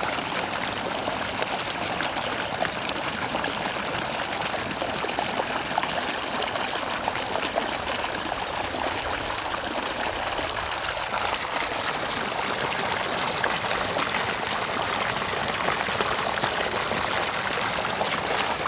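Steady trickling and splashing of running water, with a constant level throughout.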